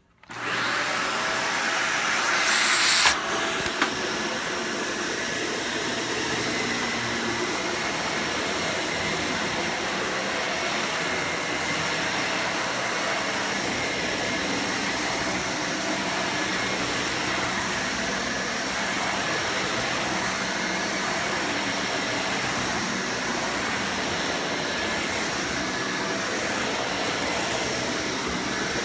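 Dyson Cinetic Big Ball Animal canister vacuum switching on and running steadily, with a faint high whine over the airflow. About two to three seconds in, a louder rushing hiss swells and cuts off with a click, followed by another click.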